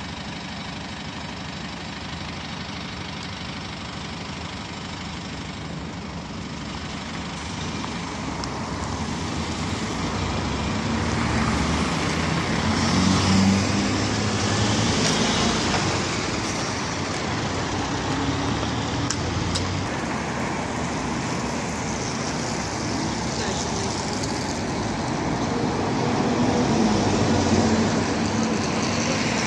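A PAZ midibus engine idling at a stop, then pulling away and passing close by, its sound building up over several seconds. Near the end a second, larger city bus drives past, louder again.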